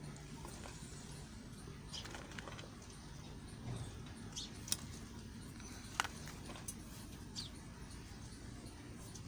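A knife cutting and scraping through a soft bar of white Lux soap, giving scattered crisp clicks and short scrapes. The sharpest clicks come a little before the middle and about two-thirds of the way in.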